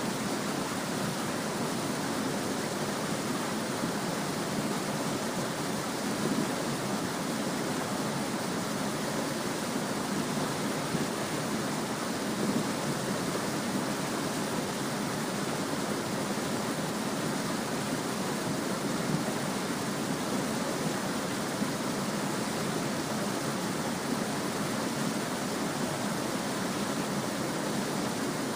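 A small stream flowing and babbling steadily, a continuous even rush of water with no breaks.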